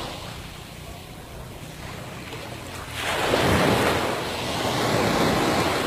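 Sea waves washing onto a sandy beach, with a louder surge of surf about three seconds in. Wind buffets the phone's microphone.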